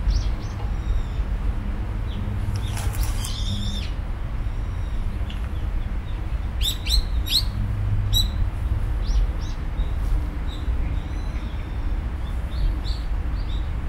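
Small birds chirping: short, high calls in several scattered clusters, over a steady low rumble.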